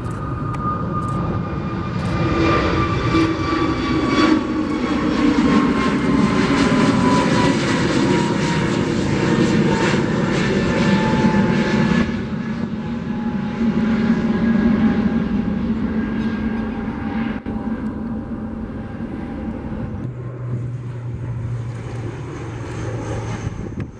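Airbus A320neo jet climbing out after takeoff: loud jet engine noise with a whine that falls slowly in pitch as it passes and moves away. About twenty seconds in, it gives way to an ATR 72-600 turboprop climbing out, with a steady low propeller hum.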